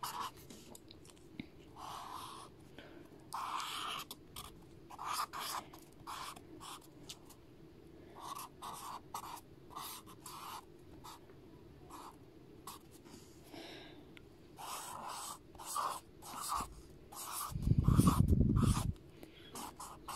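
Felt-tip marker drawing on sketchbook paper: short, irregular squeaky strokes as lines are drawn and filled in. Near the end a louder, low muffled noise lasts about a second and a half.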